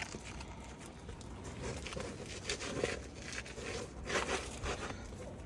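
Asphalt roof shingles being worked loose by hand: a series of short scraping, crinkling rasps.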